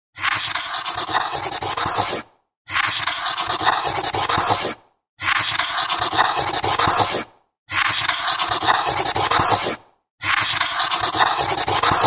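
Magic marker pen writing on paper: a hissy rubbing in strokes of about two seconds each with short pauses between, five strokes in all.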